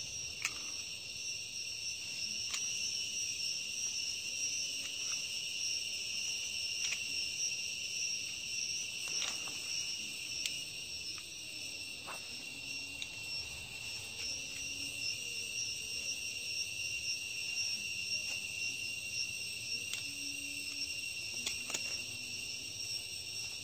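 Steady high-pitched chirring of insects in the surrounding vegetation, with a few faint light clicks from hands working a scion cutting with pruning shears.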